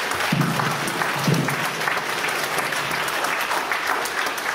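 Lecture-hall audience applauding, a dense, steady clapping.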